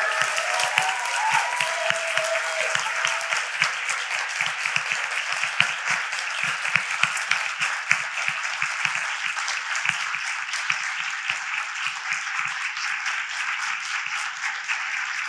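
Audience applauding steadily, with voices calling out over the clapping in the first few seconds.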